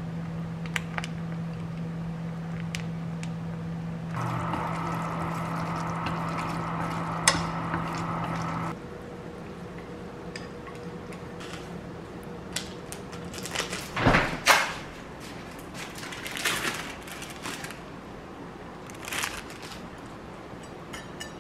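Kitchen food-handling sounds: a steady hum through the first nine seconds or so while sauce is squeezed from a packet onto instant noodles in a pot, then stops. After that, chopsticks scrape and clink against the pot and a ceramic plate as the noodles are tipped out, with a few louder knocks near the middle.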